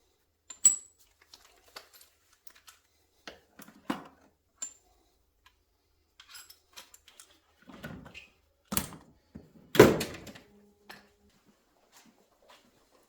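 Scattered clinks, taps and knocks of tools and parts being handled and set down on a workshop bench, with a louder thunk about ten seconds in.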